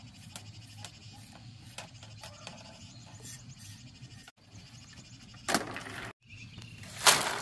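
A knife splitting and shaving thin bamboo strips, giving faint scrapes and light clicks. About five and a half and seven seconds in come two louder, short rattles of bamboo strips being handled.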